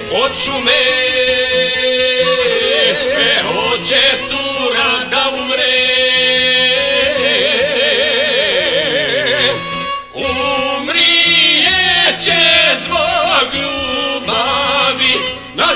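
Folk song: men singing with wavering, heavily ornamented voices over a violin and a plucked long-necked lute.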